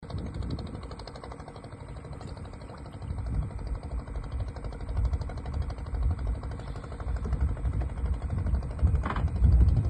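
An engine running steadily with a low, uneven rumble underneath.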